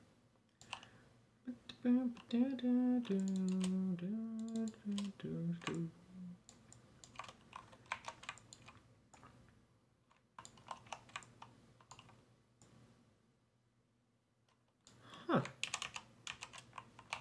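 Computer keyboard keys and mouse buttons clicking irregularly. From about two to six seconds in, a person hums a short tune of held notes, and a brief murmur follows near the end.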